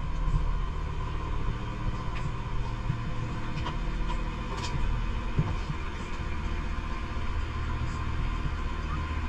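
A running engine's steady low rumble and hum.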